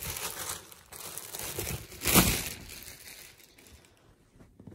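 Clear plastic poly bag crinkling as it is handled and a hoodie is taken out of it, with one loud crumple about two seconds in, dying down after about three seconds.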